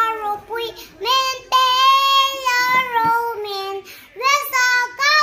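A young girl singing solo in long held notes, with short breaks for breath between phrases.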